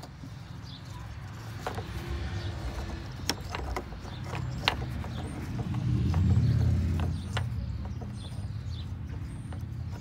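A low vehicle engine rumble that swells to its loudest about six to seven seconds in and then eases off. Scattered small clicks and rustles come from hands twisting a resistor lead onto a wire close to the microphone.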